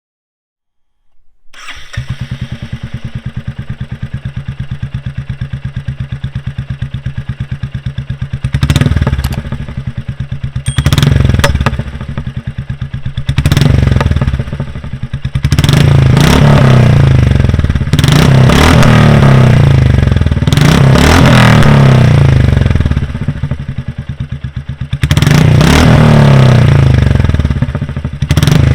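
Royal Enfield Classic 350 single-cylinder engine breathing through a short-bottle "Chhota Punjab" silencer: it starts about a second and a half in and settles into a thumping idle, then is revved again and again in short blips and longer holds.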